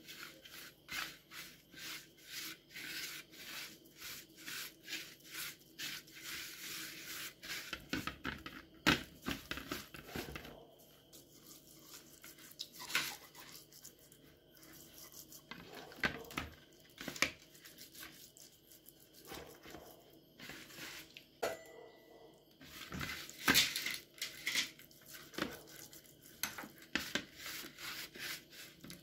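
Fingers mixing a wet spice paste on a ceramic plate and rubbing it into a whole scored fish: many short, irregular wet scrapes and dabs against the plate, with a few louder knocks.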